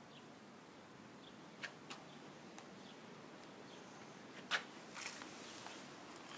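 A few short, sharp clicks over a faint steady hiss: two close together just under two seconds in, the loudest about four and a half seconds in, then a few softer ones.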